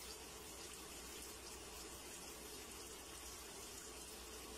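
A top-loading washing machine filling with water: a faint, steady rush of water pouring into the drum.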